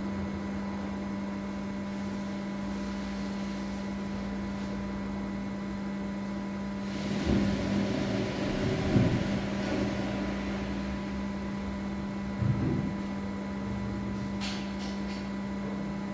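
A steady electrical hum, with a muffled rustling and bumping about halfway through and a short knock a few seconds later.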